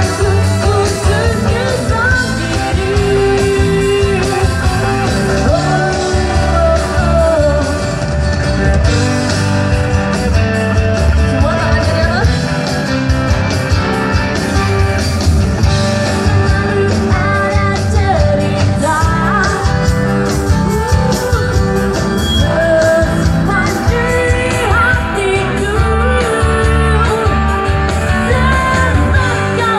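A live band playing a pop-rock song: a singer's voice over guitar, bass and drums, loud and steady.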